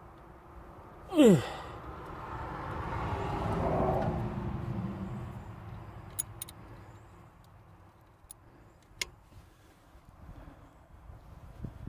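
A vehicle passing by, its noise swelling and then fading over a few seconds, after a short, loud squeal that falls in pitch about a second in. Several sharp metallic clicks follow, typical of hand tools on the brake parts.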